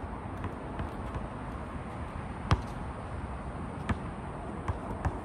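A basketball bouncing on an outdoor asphalt court: a few separate, irregular bounces, the loudest about two and a half seconds in, over steady background noise.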